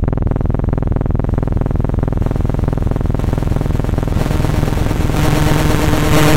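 Experimental electronic noise: a dense, very rapid train of clicks that forms a coarse buzz. Hiss builds in the high end, and steady low tones come in about five seconds in.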